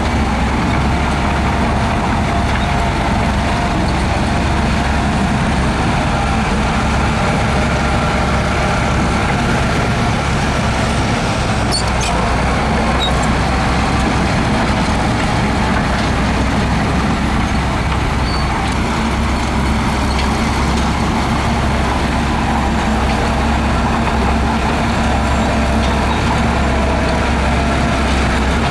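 Heavy diesel earthmoving machinery running steadily at a constant low drone.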